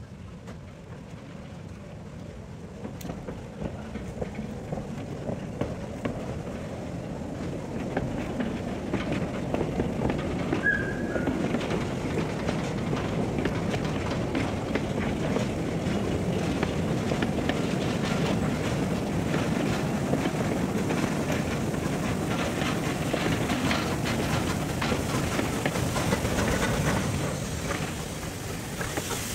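1945 Franco-Belge 040 KDL narrow-gauge steam locomotive (an 0-8-0) working a train of wagons as it draws near: the engine's working and the rattle of the wagons on the track grow louder over the first ten seconds or so. It then passes close by near the end.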